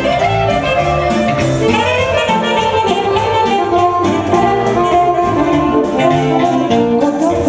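Live band music: a saxophone plays the lead melody over accordion, electronic keyboard and drums, with a steady beat.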